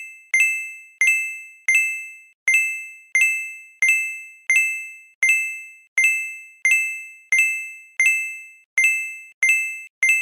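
Electronic bell-like ding sound effect, the same tone struck over and over, about every 0.7 seconds, each strike sharp and fading quickly.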